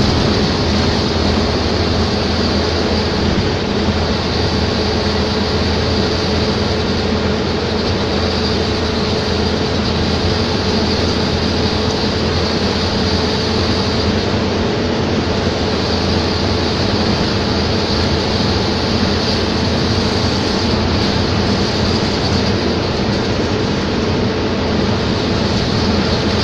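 A vehicle driving steadily along a highway: a continuous engine drone with road and tyre noise, even and unbroken.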